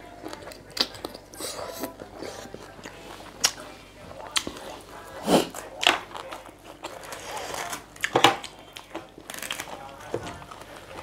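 Close-miked eating sounds: crisp raw Chinese cabbage leaves torn and chewed, with crunching and wet mouth noises, and a few louder crunches in the middle.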